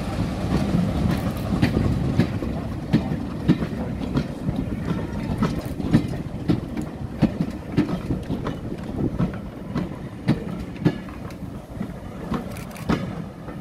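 Passenger coaches of a departing train rolling slowly past, their wheels clacking irregularly over the track joints with a low rumble underneath, a little quieter near the end as the last coach goes by.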